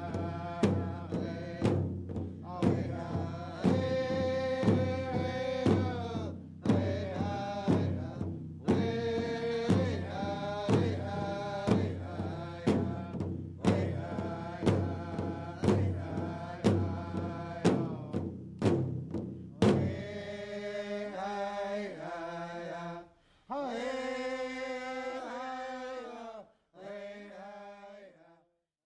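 Music: singing in a chant over a steady drum beat. About twenty seconds in the drum stops and the singing goes on alone until it ends near the close.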